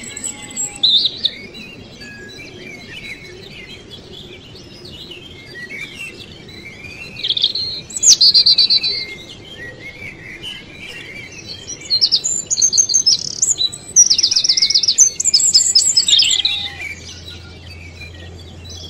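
Small birds chirping and singing, with loud bursts of fast trilled notes about seven seconds in and again from about twelve to sixteen seconds in.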